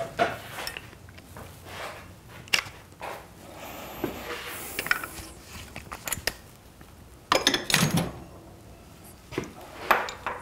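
Hand tools being picked up, handled and set down: scattered clicks and knocks, with a louder cluster of knocks about seven to eight seconds in.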